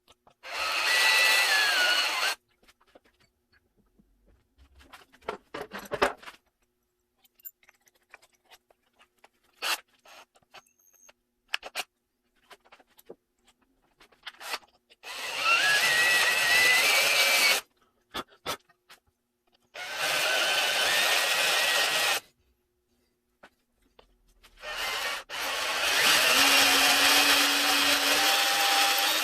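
Electric drill running in four bursts of a few seconds each, its motor whine climbing as it spins up, drilling into the broken exhaust stud left in the VG30ET cylinder head.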